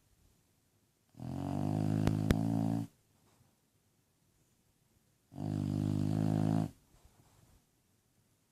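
Bulldog snoring in its sleep: two long, low snores about four seconds apart, each lasting about a second and a half, with two short clicks during the first.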